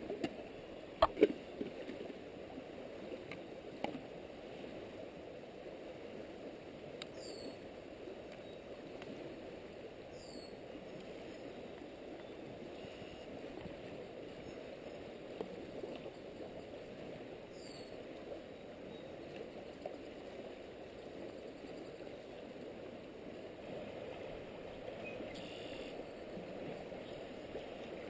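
River water flowing along the shore: a steady, even rush. A few sharp clicks about a second in.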